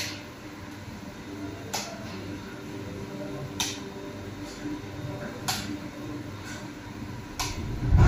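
Steady hum of a bakery workroom with a short sharp click about every two seconds, and a heavy low thump right at the end.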